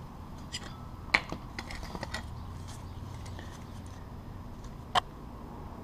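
Small plastic clicks and taps as a fuel pump strainer is handled and fitted onto the inlet of an electric fuel pump by hand, with a cluster of light clicks in the first two seconds and one sharper click about five seconds in.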